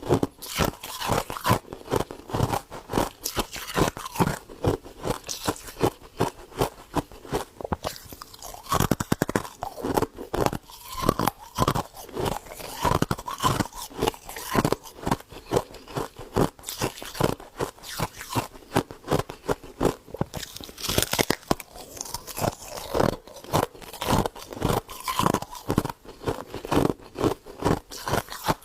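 Close-up chewing of crunchy frost ice: rapid, repeated crunches, several a second, throughout.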